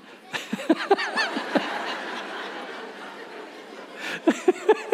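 Audience laughing: a burst of laughter breaks out just after the start and dies down over about two seconds, then a few more laughs come near the end.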